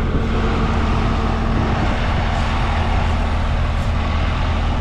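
Skid steer engine running steadily at an even speed, close up, with a constant low hum.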